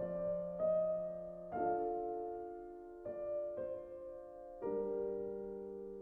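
Slow, soft background piano music. Notes and chords are struck every second or so and left to ring and fade.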